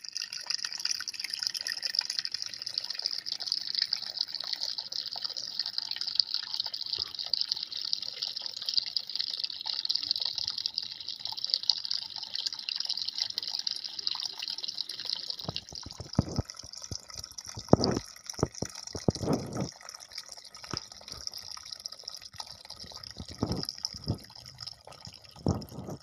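Small tabletop rock fountain running: water pouring and trickling over stacked stones into its basin in a steady splashing hiss. In the second half, louder separate drops and splashes come through now and then.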